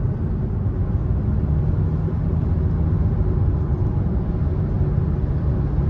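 Kia Soul's engine and road noise heard from inside the cabin as a steady low rumble, the car pulling in gear. It runs smoothly with no misfire now that the bad ignition coil on cylinder 3 has been replaced.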